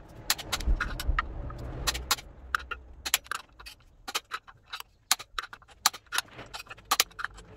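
Torque wrench ratcheting on the new bolts of a dual mass flywheel as they are tightened to 120 Nm: irregular sharp metallic clicks, with a low rumble over the first two seconds or so.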